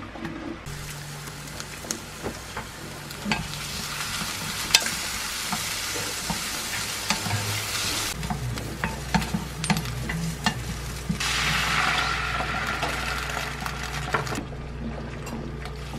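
Sliced onions sizzling in olive oil in a nonstick frying pan while a silicone spatula stirs them, with many light taps and scrapes. The sizzle starts about a second in, eases around the middle, and swells louder again for a few seconds near the end.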